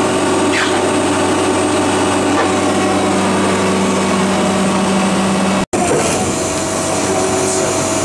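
Al-Jon Super 400 logger/baler running, its 175-hp Cummins 5.9 diesel engine and hydraulics giving a steady drone with a humming tone. The sound cuts out for an instant a little past halfway, and the hum is weaker after it.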